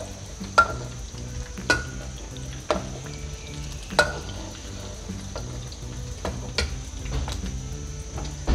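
Thai crab omelette deep-frying in hot oil in a wok, sizzling steadily, with a few sharp clicks as metal spatulas strike the wok while it is turned.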